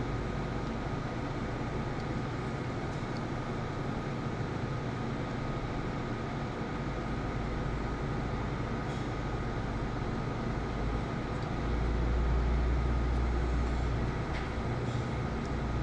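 Steady hum of running kitchen machinery with a faint, steady high whine over it; a deeper rumble swells for a few seconds near the end.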